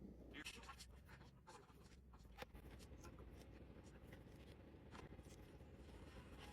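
Faint clicks and scratchy rustling of small plastic LEGO pieces being handled and fitted together, over a quiet low steady rumble.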